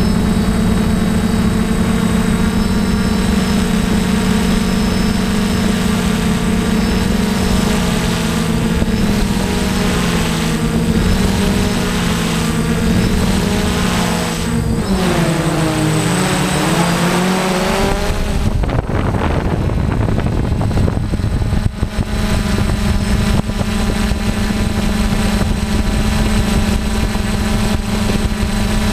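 DJI F550 hexacopter's motors and propellers buzzing in flight, heard up close from the camera on its frame. The tone wavers and dips in pitch about halfway through, falls away briefly, then comes back steady.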